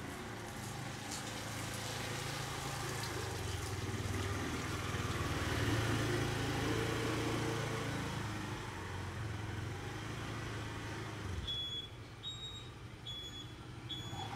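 Small motor scooter engine running with a steady low hum, cutting off abruptly about eleven seconds in. After that comes a regular series of short high-pitched beeps.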